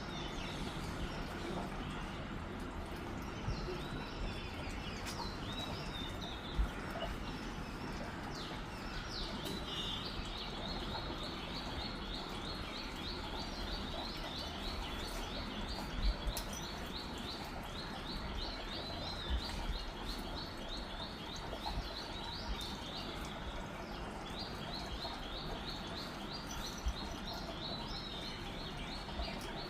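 A bird chirping in a fast, even series of short high calls from about ten seconds in, after a few scattered chirps, over a steady background hiss, with a few brief knocks.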